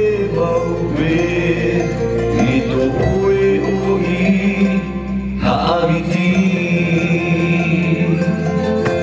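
Music with voices chanting on long held notes over instrumental accompaniment. The sound changes with a brief break about five and a half seconds in, then the chant carries on.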